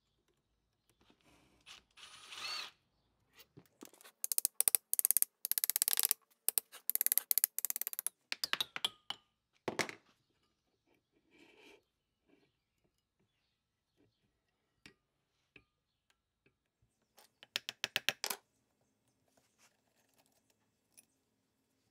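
Wrench working the nut on the shaft end of a 1930s Sioux bench grinder motor: several bursts of rapid metallic clicking, loudest for a few seconds in the first half, with scattered clinks and scrapes between.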